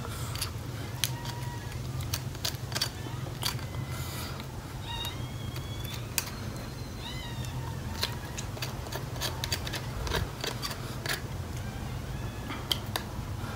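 Sharp clicks and cracks of blue crab shell being picked apart by hand and with a metal spoon, over a steady low hum. A few short, high gliding animal calls sound about 5 and 7 seconds in.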